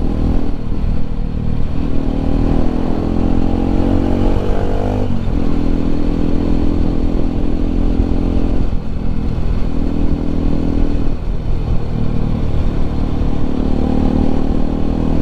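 Bajaj Pulsar RS 200's stock single-cylinder engine and exhaust under way, the revs climbing and falling back several times as the bike rides through traffic.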